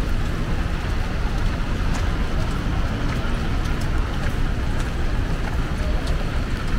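Steady rain and city street noise under a constant low rumble, with faint ticks here and there.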